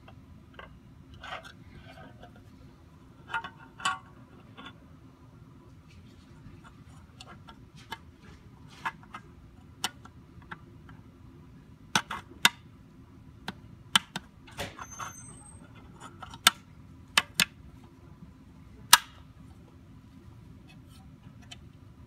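Plastic and metal mounting brackets and casing of a Lenovo M700 Tiny mini PC being handled and fitted together: scattered sharp clicks and clacks, the loudest and most frequent from about halfway through to near the end, over a low steady hum.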